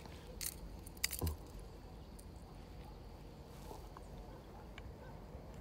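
Fishing rod and spinning reel being handled: a brief hiss about half a second in, then a quick cluster of clicks with a soft thump just over a second in, over faint outdoor background.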